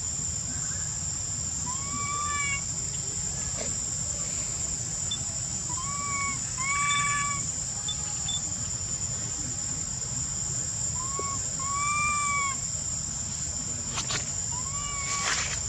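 Steady high-pitched insect drone, with short whistled calls that rise and fall, repeated every few seconds and often two close together. A couple of faint clicks near the end.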